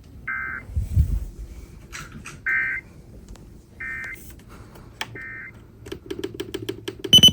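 Short bursts of EAS SAME digital data tones, the brief warbling screech of the end-of-message code, repeated several times about a second or more apart. Near the end comes a rapid run of clicks, then one loud sharp beep.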